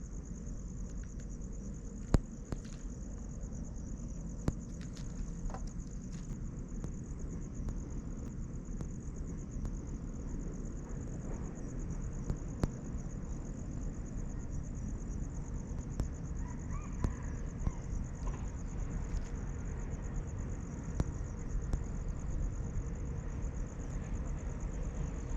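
Steady chorus of insects, a continuous high, finely pulsing trill, over a low outdoor rumble, with a few sharp clicks and some faint chirps a little over halfway through.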